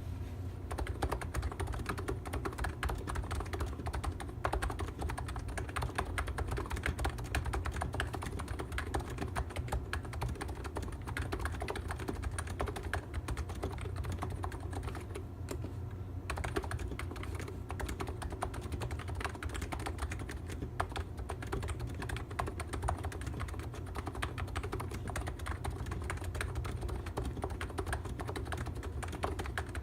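Continuous fast typing on an ABKO Hacker K935P v2 electro-capacitive (contactless) keyboard: a dense, steady stream of key clacks.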